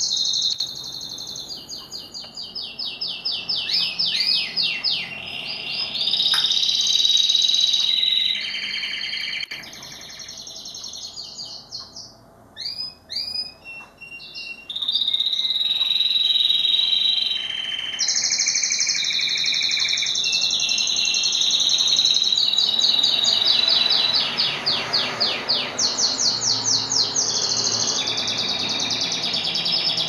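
Domestic canary singing a long, continuous song of rapid trills and held notes that change every second or two. About halfway through it drops to a few separate short chirps for a couple of seconds, then resumes the full song.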